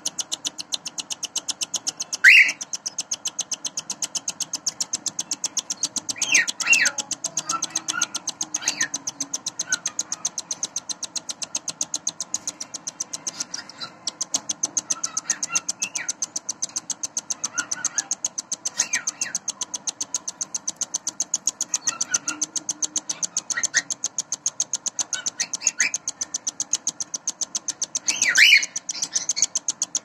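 Cockatiel chicks begging as a parent feeds them: a fast, even rhythm of raspy pulses throughout, with short, louder squeaks now and then. The loudest squeaks come about two seconds in and near the end.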